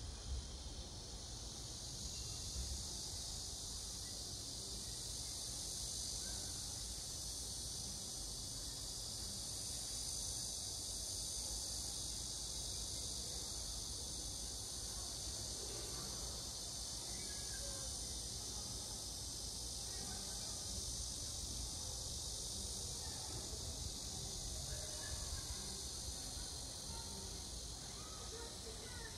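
Steady insect chorus: a continuous shrill high trill of many calling insects, with a few faint short chirps over it in the second half.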